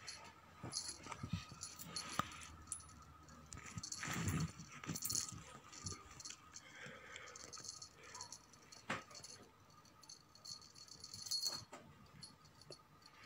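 Cat teaser toy rattling and jingling as it is shaken and dangled, in uneven spells with sharp clicks, loudest about four seconds in.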